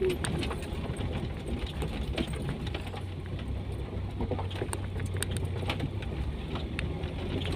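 Lowered Toyota Kijang driving on a rough dirt track, heard from inside the cabin: a steady low engine hum with scattered short knocks and rattles from the car over the bumps.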